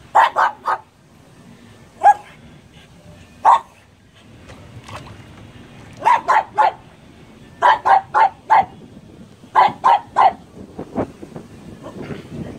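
A pug barking in short, sharp barks. They come in quick runs of three or four, with single barks between.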